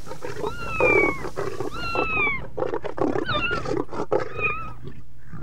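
Cat meowing over and over, about four drawn-out calls that each fall in pitch, roughly one a second.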